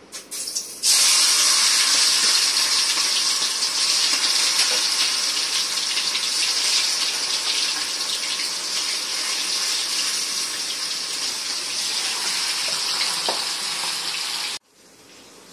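Masala-marinated chicken pieces deep-frying in hot oil in a kadai, a loud steady sizzle that starts suddenly about a second in as the pieces go in and eases slowly. It cuts off suddenly near the end.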